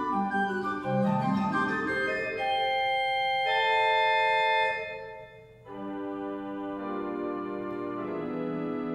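Goll pipe organ playing a scherzo: a quick run of notes, then a bright held chord that is released about five seconds in, and after a brief pause a softer sustained chord.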